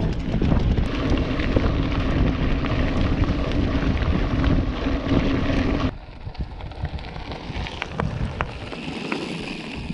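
Wind buffeting the microphone and mountain-bike tyres rolling over a gravel track at speed, with a steady low hum. About six seconds in the sound cuts suddenly to a quieter noise with a few faint crunches.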